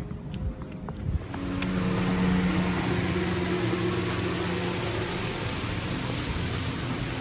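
A motor vehicle running: a steady engine hum under rushing noise comes in about a second and a half in and holds steady, after a few light clicks.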